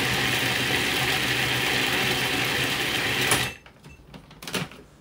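Food processor motor running steadily with its S-blade chopping a thick mix of dates, almonds and seeds, cutting off suddenly about three and a half seconds in. A few light knocks follow as the plastic bowl is lifted off the base.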